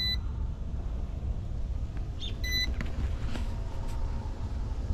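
Short high electronic beeps, three of them about two and a half seconds apart, from the YuXiang F09-S RC helicopter set's low-battery warning: the flight battery is run down. A steady low rumble sits underneath.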